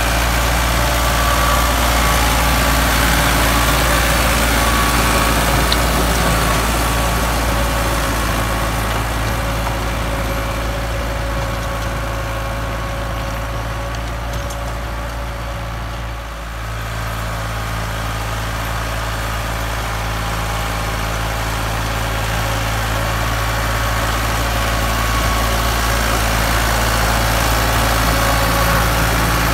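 Diesel tractor engines running steadily under load while pulling rotavators through dry soil: a Ford 4610 three-cylinder and a Massey Ferguson 385 four-cylinder. The level dips briefly a little past halfway.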